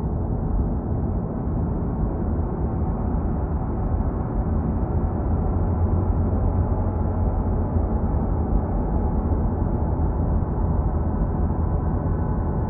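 Dark ambient drone music: a dense, steady low rumble with sustained tones held above it, unchanging and without beat.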